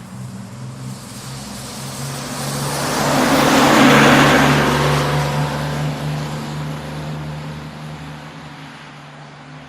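A vehicle passing by: a steady low engine hum with a rush of noise that swells to its loudest about four seconds in and then slowly fades.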